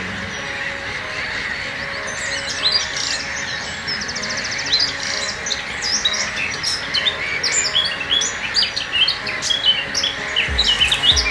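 A dense chorus of many small birds singing and calling at once: quick chirps and whistles overlapping, with a rapid buzzy trill about three seconds in. Background music with steady held notes runs underneath, and a low beat comes in near the end.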